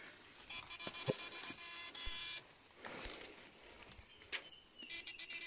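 Electric-fishing device giving off a high-pitched electronic whine, a stack of steady tones, switched on for about two seconds, off, then on again near the end. A few light knocks in between.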